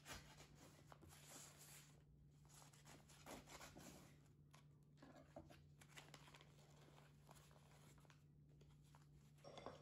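Faint rasping and crinkling of a kitchen knife sawing through a paper-wrapped sandwich on a wooden chopping board, the paper tearing under the blade, with a louder rustle of the paper being handled near the end.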